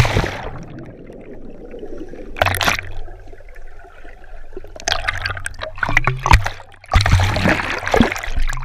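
Water splashing: a sharp splash right at the start that dies away, then irregular splashing and sloshing, heaviest near the end.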